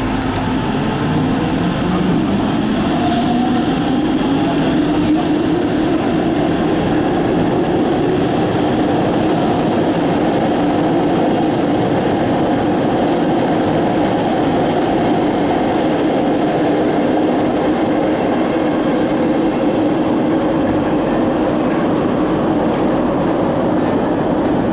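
MTR M-Train electric multiple unit pulling away and running through a tunnel: a traction-motor whine rises in pitch over the first few seconds as it accelerates, then settles into a steady loud rumble of wheels on rails.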